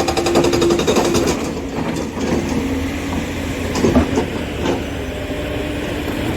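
Excavator-mounted hydraulic rock breaker hammering in a rapid, even rhythm, stopping about a second in. The machine's diesel engine keeps running, with a couple of sharp knocks near the middle.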